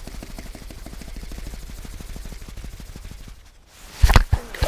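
Fishing reel being cranked in, a fast, even ticking of about a dozen clicks a second, which stops about three and a half seconds in. Near the end come a few loud knocks and rubbing as the camera is bumped and covered.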